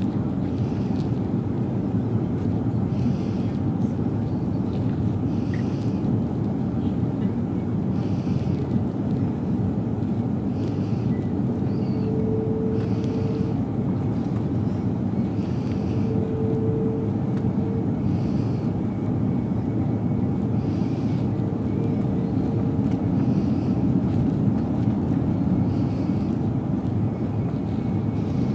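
Steady airliner cabin noise in flight: the jet engines and rushing air heard from inside the cabin. A faint hum comes and goes three times midway through.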